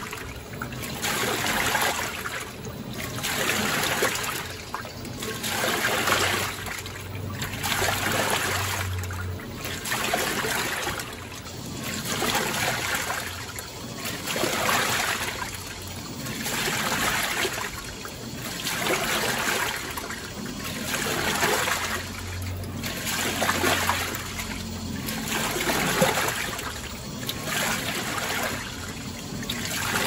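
Water and clothes sloshing in the tub of a Panasonic NA-FD10X1HRM top-load washing machine as its pulsator churns the wash back and forth. Each surge swells and fades in a steady rhythm about every one and a half seconds, with a low hum at times.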